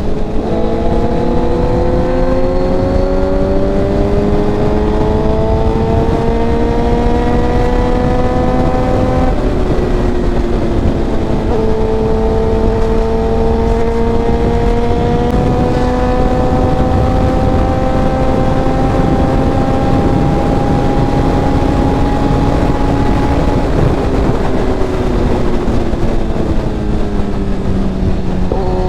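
Suzuki GSX-R1000R inline-four with a Racefit exhaust, under way: revs climbing slowly, a sharp drop in pitch about nine seconds in as it shifts up, a long slow climb again, then revs falling over the last few seconds as it eases off.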